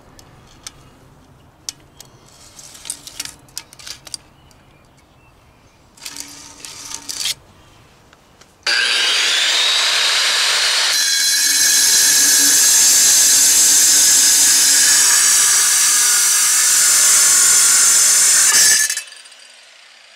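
A few light clicks and taps. Then, about eight and a half seconds in, an angle grinder spins up with a rising whine and cuts through a terracotta clay chimney flue tile for about eight seconds, with a loud steady grinding that stops abruptly near the end.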